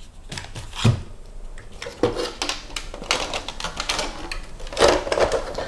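Hard plastic and carbon-fibre parts of an RC car being handled, with irregular clicks, knocks and clattering. The rattling is densest in the second half.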